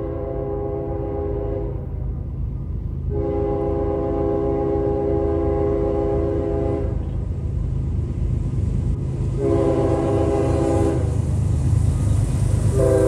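CSX diesel locomotive's multi-note air horn sounding the grade-crossing signal: the tail of one long blast, a second long blast, a short blast, then the start of a final long blast near the end. Underneath runs the low rumble of the approaching intermodal freight train, growing louder as it nears.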